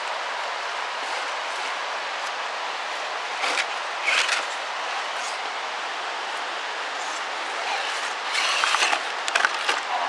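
Steady rush of the waterfall, with the RC crawler's electric motor and tyres scrabbling over leaves and rock in short bursts a few seconds in. Near the end comes a cluster of knocks and clatter as the truck tips over onto the rock.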